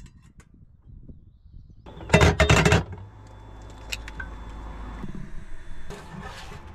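Cookware clattering loudly for under a second, about two seconds in, during cooking prep, then a steady low hum with a faint high whine and a few light clinks.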